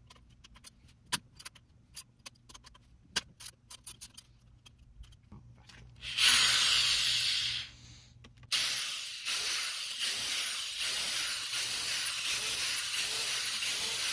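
A power drill spinning out the control-unit bolts on a 6T45 automatic transmission: a short run about six seconds in, then running steadily from about eight and a half seconds on. Before that, scattered light metallic clicks from hand tools working the bolts.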